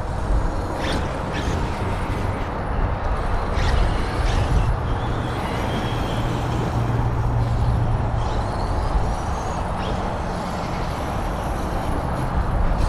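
Electric RC trucks driving on a dirt track: a faint high motor whine that rises in pitch a couple of times, a few sharp ticks early on, all over a heavy low rumble.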